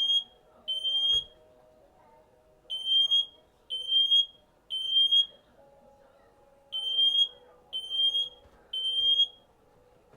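Smoke detector alarm sounding the three-beep evacuation pattern: three high, piercing beeps about half a second each, a pause of about a second and a half, then again. It is in alarm after being set off with burning smoke and keeps going without resetting.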